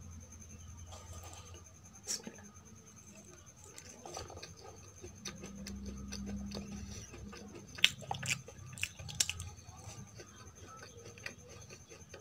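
Close-miked chewing and wet mouth sounds of a soft, syrupy kala jamun being bitten and eaten, with a run of sharp smacking clicks about two-thirds of the way in.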